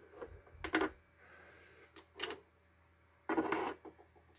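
Hard plastic and metal parts being picked up and handled on a wooden workbench: a sharp knock under a second in, two quick clicks around two seconds, and a longer rattle near the end, the loudest of them.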